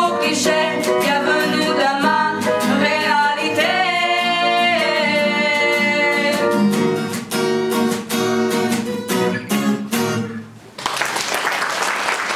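Two young women singing a French song in duet over strummed guitar accompaniment. The voices stop about seven seconds in, the guitar plays on and stops about ten seconds in, and applause breaks out just after.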